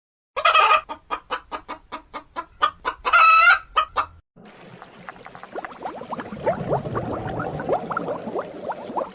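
Chickens: a hen clucking in a quick run, about four clucks a second, with one longer drawn-out call about three seconds in. After a short break comes a second clip of a flock of chickens, many short overlapping calls over a steady background hiss.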